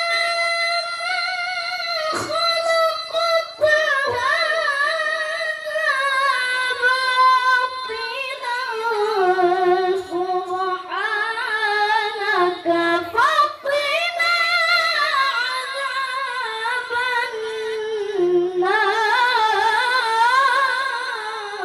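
A child qari reciting the Quran in a high voice, in the melodic tilawah style: long wavering held notes with ornaments, the melody stepping down and climbing high again, with short breaks for breath.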